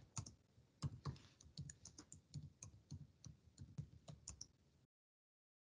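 Faint, irregular clicking of computer keys, about four clicks a second. About five seconds in the sound cuts out to dead digital silence: the video-call audio dropping out.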